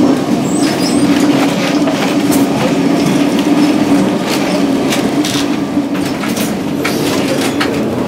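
Old Lisbon tram 28 running along the street, heard from inside the car: a steady motor hum and rumble with scattered clicks and rattles from the wheels on the rails.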